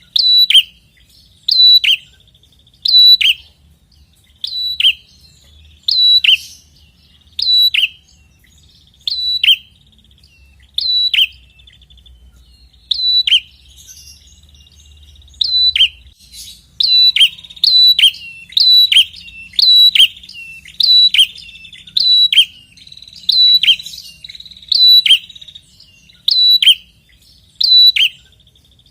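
Prenjak kepala merah singing loudly: a call repeated over and over, each a short high note that drops sharply in pitch. The calls come about every second and a half at first, then faster, less than a second apart, from about halfway through.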